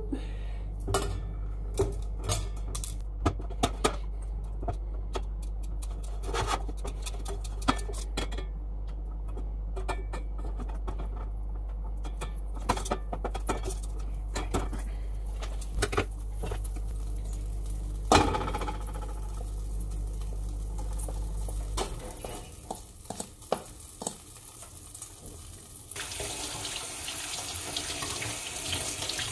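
Plastic spatula scraping and tapping around a stainless steel frying pan as butter is spread in it, over a steady low hum that stops about two-thirds of the way through. Near the end a steady sizzling hiss starts up from the hot pan.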